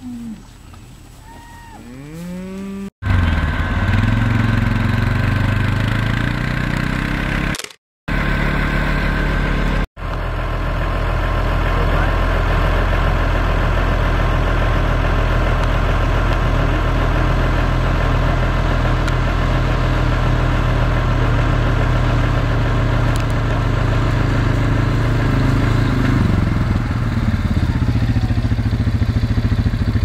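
A cow mooing a few times, then the steady engine note of a red Kawasaki farm quad bike (ATV) running for the rest of the time, broken by two short gaps, its pitch falling near the end as it slows.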